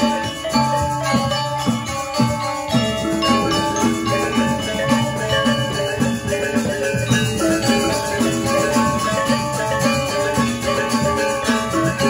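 Balinese gamelan gong ensemble playing: ringing bronze metallophones struck in a steady, even rhythm over a lower pulse of gong and drum, continuous music with no pause.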